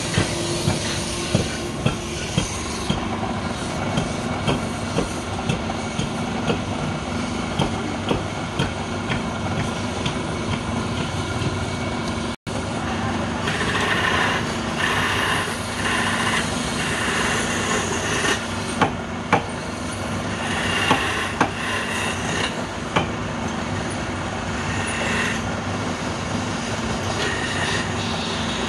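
Wood lathe running with a steady hum and a sharp knock repeating somewhat under twice a second. After a brief break, a hand chisel cuts the spinning wooden spindle in scraping bursts.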